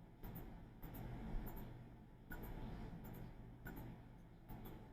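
Faint rubbing of a computer mouse being slid across a desk, in several short strokes over a low steady hum.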